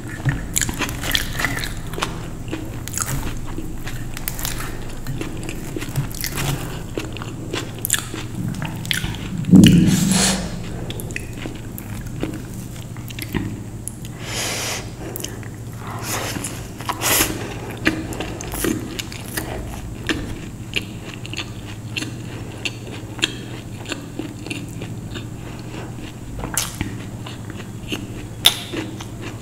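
Close-miked eating of a masala Mysore dosa: repeated bites and wet chewing with small crunches and mouth clicks. There is one louder, deeper thud about ten seconds in.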